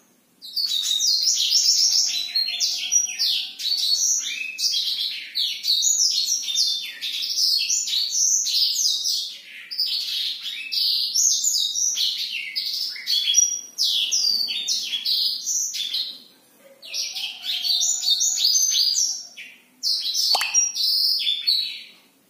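Black-throated canary (blackthroat) singing a long, fast warbling song of rapid high notes, broken by a few short pauses in the second half.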